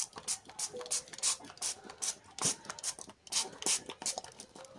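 Hand-held fine-mist pump spray bottle spritzing water onto a houseplant and its wooden climbing stake to keep them humid, in quick repeated squirts of about three short hissing puffs a second.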